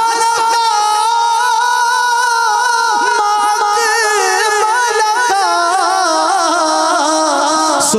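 A man singing a naat into a microphone, holding one long note with a slight waver for about five seconds before the melody moves on through shorter rising and falling notes.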